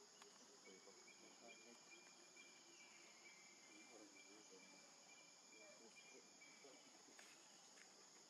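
Faint outdoor ambience of insects droning steadily and high-pitched, with a thinner steady whine held for about six seconds.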